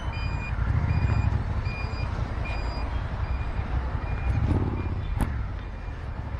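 Suzuki SV650's 645 cc V-twin engine running at low speed in slow traffic, with a short electronic beep repeating about every three-quarters of a second that fades out about halfway through. There is a single sharp click near the end.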